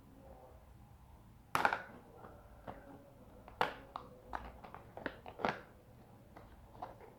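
Parts of a toy sand truck being fitted together by hand: about six irregular clicks and knocks, the first and loudest about a second and a half in.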